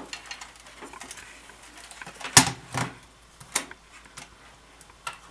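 Plastic clicks and knocks from the Jenga Boom game's plastic timer base being handled and set down on a wooden desk, a few irregular knocks with the loudest about halfway through.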